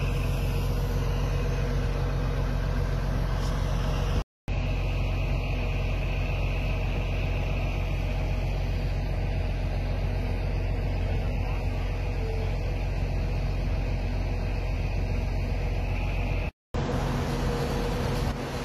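Steady vehicle engine hum with road noise, cut off by two brief silent gaps, one about four seconds in and one near the end.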